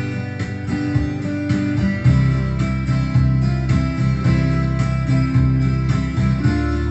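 Acoustic guitar strumming steadily through an instrumental song intro, with low bass notes moving underneath.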